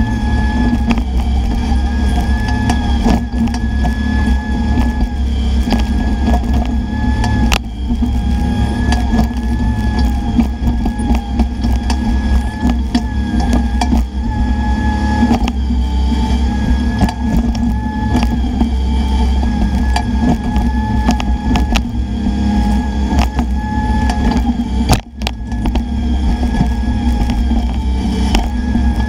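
Bobcat E10 mini excavator's diesel engine running steadily under load while digging out a palm stump, with a high hydraulic whine that wavers and breaks off and on, and a few sharp knocks.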